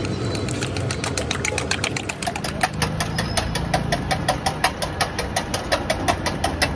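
Fork beating raw eggs in a steel bowl: a fast, even clinking of metal on metal, several strikes a second, over a steady low hum.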